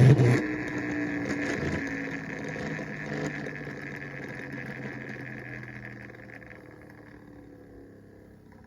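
Rip-cord flywheel in a toy skater spinning down after a fast pull: a steady whir that slowly fades away over about seven seconds. The spinning makes the toy vibrate rather than turn its wheels.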